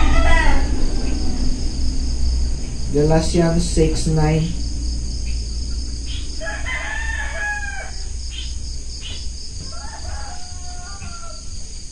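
Roosters crowing: one crow about six and a half seconds in and a fainter one near the end, over steady pulsing insect chirping.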